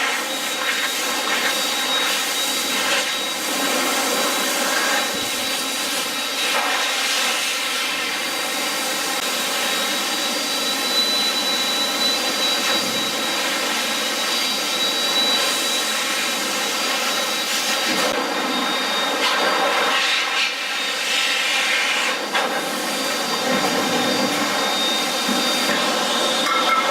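A motor-driven machine running steadily: a broad whoosh with a thin high-pitched whine held throughout.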